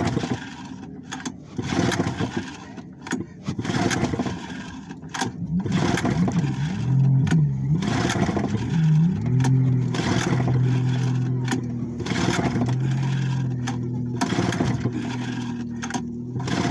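Old outboard engine, freshly rebuilt and unused for weeks, being cranked and failing to start. It turns over in uneven bursts at first, then gives a steadier drone in the second half without catching. The owner finds its carburettor float overflowing.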